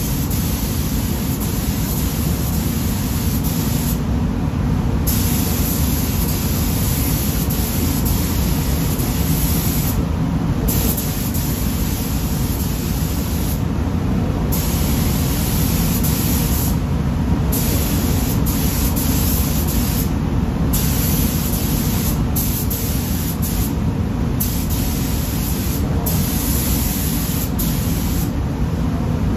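Air-atomising paint spray gun hissing steadily pass after pass. The hiss drops out briefly every three to four seconds as the trigger is let go between strokes. Under it runs a steady low rumble of the spray booth's air flow.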